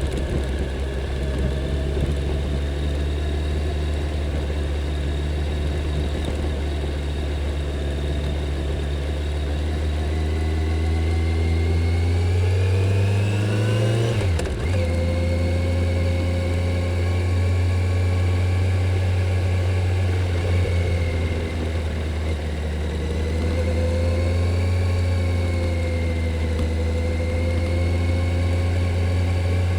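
Kawasaki Z900's inline-four engine on its stock exhaust, riding along. The revs climb for a few seconds and fall sharply about halfway through at a gear change, then the engine settles back into steady cruising with slight rises and falls.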